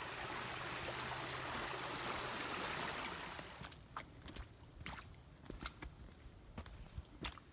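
A small rocky forest stream running, a steady rush of water that cuts off suddenly about three and a half seconds in. A scatter of faint, sharp ticks and snaps follows.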